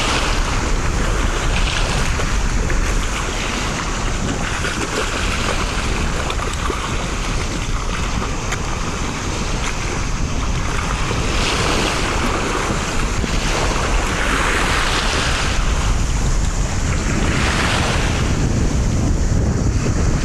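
Wind buffeting the microphone over small sea waves washing on a pebble shore, with the water swishing louder every few seconds.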